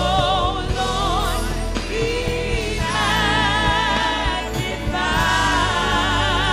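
Gospel worship music: voices singing together with vibrato, held notes over a steady instrumental backing.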